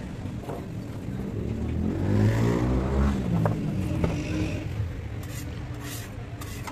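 A motor vehicle's engine passing close by, loudest about two to three seconds in with its pitch falling as it goes, over a steady low rumble. Two sharp clicks come about three and a half and four seconds in.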